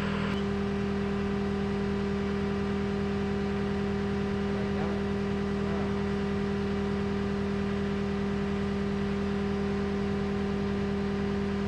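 John Deere skid steer's diesel engine running steadily with an even hum, left running while its control wiring is tested.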